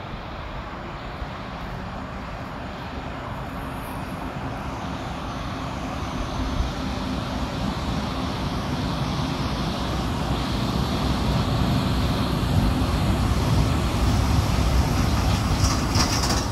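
Koleje Mazowieckie electric multiple unit approaching and running into the platform, its rumble growing steadily louder as it comes closer, with a brief high squeal near the end.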